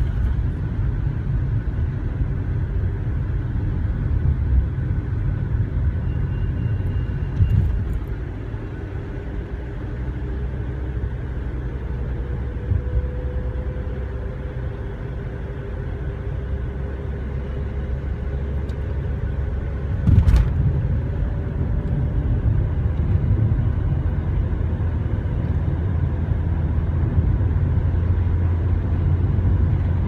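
Car driving along a highway, heard from inside the cabin: steady low engine and road rumble, with a faint tone slowly rising in pitch midway. A couple of short thumps come through, the loudest about twenty seconds in.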